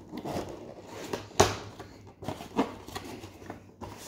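A cardboard toy box being handled and opened and a clear plastic tray sliding out of it, with a run of short rustles and clacks. The loudest knock comes about one and a half seconds in.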